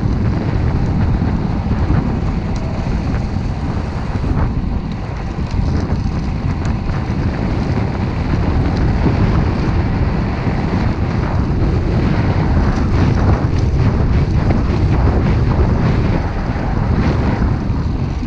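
Wind buffeting the camera microphone on a fast bicycle descent, with the rumble of the tyres on rough tarmac and a few short clicks and rattles over bumps.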